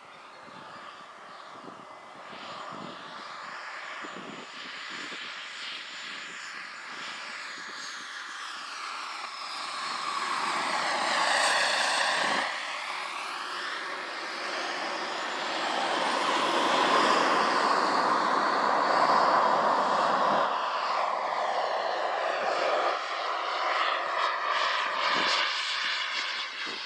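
Radio-controlled model of a CT-114 Tutor jet trainer in flight, its engine's high whine growing louder as it comes in. Its pitch sweeps down as it passes close, about halfway through, and it is loud again a few seconds later on the next pass.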